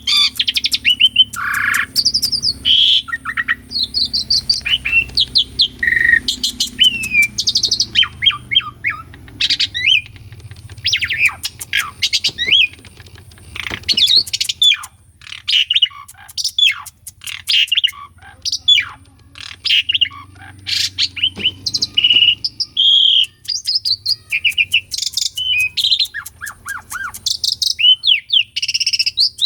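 Asian pied starling (jalak suren) singing a fast, varied run of whistles, chirps and rattling clicks, with short gaps between phrases.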